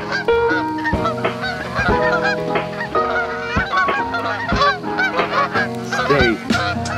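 A flock of Canada geese honking continuously, many short calls overlapping, over background music with held notes.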